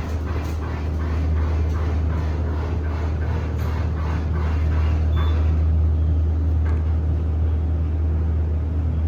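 Steady low hum of a 1975 Otis hydraulic elevator (KONE-modernised) running, with faint regular ticks in the first half that fade out about halfway. The elevator runs tired and sounds worn out from heavy use.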